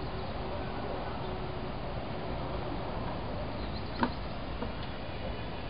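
Steady background noise with a single sharp click about four seconds in and a few fainter ticks.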